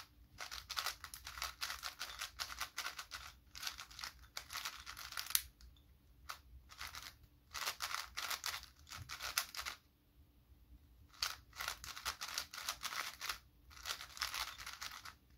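Magnetic plastic 5x5 speedcube (MoYu AoChuang WRM) being turned quickly by hand: rapid runs of clicking and clattering layer turns, with two short pauses, about five and a half and ten seconds in.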